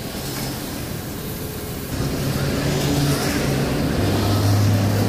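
A motor running steadily with a low hum, getting louder about two seconds in.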